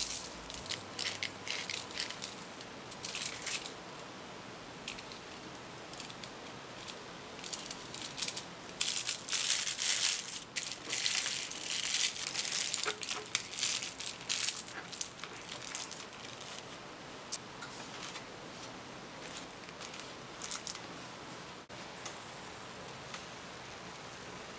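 Aluminium foil crinkling and rustling in irregular bursts as it is gathered and wrapped tightly around a head of garlic. The busiest stretch is near the middle, and it thins out toward the end.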